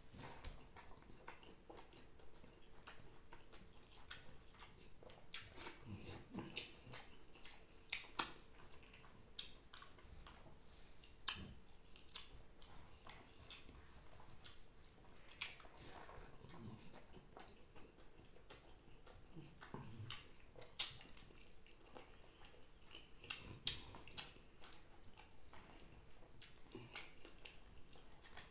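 A man eating rice with his hand: wet chewing and lip smacks with irregular sharp clicks, the loudest two about eight and eleven seconds in, along with his fingers mixing rice on a banana leaf.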